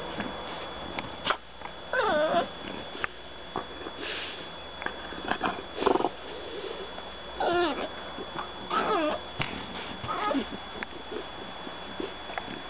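French Bulldogs play-fighting: about five wavering, whiny grumbles that slide up and down in pitch, with short clicks and snuffles from mouthing and biting between them.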